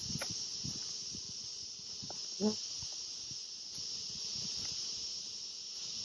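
Steady high-pitched chorus of insects, with scattered soft knocks of poly hive boxes and frames being handled. A brief low hum about two and a half seconds in.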